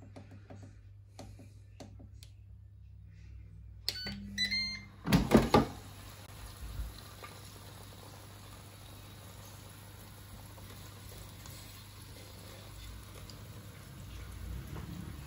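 Ninja air fryer beeping from its control panel about four seconds in, then its basket drawer pulled out with a few loud clunks. A steady low hum follows, with faint ticks near the end as tongs turn the pork chops in the basket.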